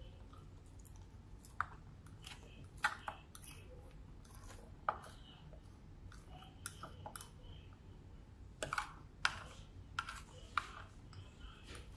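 Close-up eating sounds: a plastic fork clicking and scraping against a plate while scooping rice and beans, mixed with chewing and mouth clicks. Irregular sharp clicks, with a cluster about nine seconds in.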